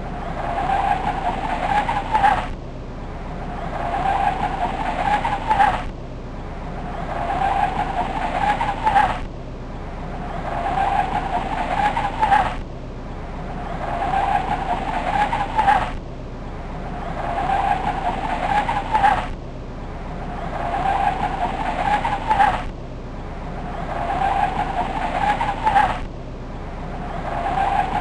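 Volkswagen Golf Mk4 GTI engine and exhaust sound that builds over about two and a half seconds and then cuts off sharply. The same burst repeats evenly about every three seconds, eight times over.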